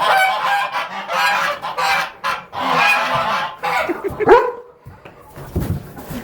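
Domestic fowl giving loud, repeated honking calls, with one especially loud call about four seconds in.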